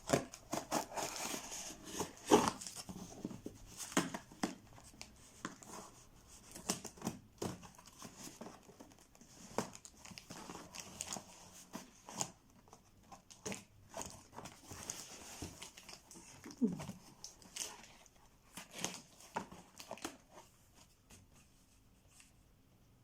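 Plastic packaging being torn open and crinkled by hand, in irregular rustles and snaps that die away near the end.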